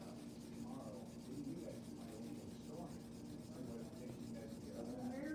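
Marker rubbing back and forth on paper while colouring in, faint, over a steady low hum.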